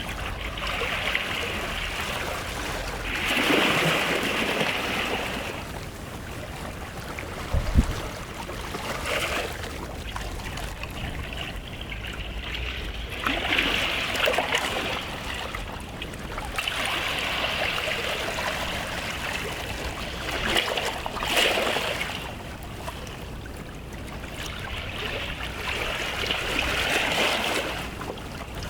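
Small waves washing in on a beach shoreline, the water hissing and swelling every few seconds and then ebbing away. A brief low thump about eight seconds in.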